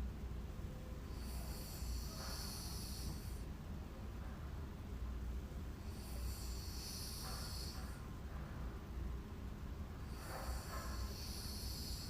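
A sleeping woman snoring: three long snoring breaths about four seconds apart, each lasting about two seconds, over a steady low room rumble.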